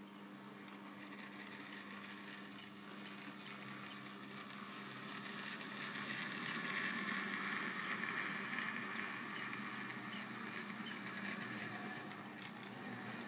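OO gauge model train running past: a tank-engine model's motor and wheels whirring and rattling on the track as it hauls a rake of mineral wagons. The sound swells to its loudest about seven seconds in as the train passes close, then fades.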